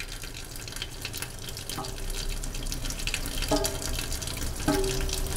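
Kitchen tap running, the water splashing into the sink.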